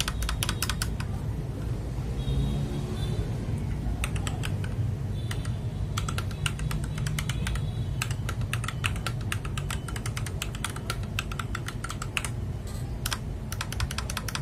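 Rapid typing on a mechanical keyboard: a dense, irregular run of key clicks that thins out briefly about two to five seconds in.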